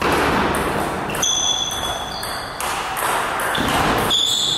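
Table tennis rally: the ball clicking back and forth off the bats and table, with a few short high squeaks of shoes on the court floor over a steady background noise of the hall.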